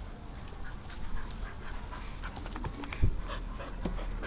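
Two dogs fighting: scuffling noises, with a sharp thump about three seconds in.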